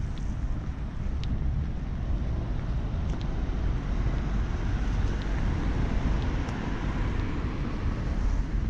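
Wind buffeting the camera microphone: a steady, uneven low rumble over a wash of outdoor harbourside noise, with a few faint short ticks.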